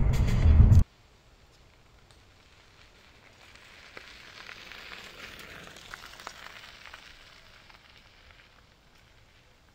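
Loud music over car road noise cuts off abruptly under a second in. After a quiet stretch, a bicycle's tyres on a gravel path give a faint crackling hiss that swells and then fades away.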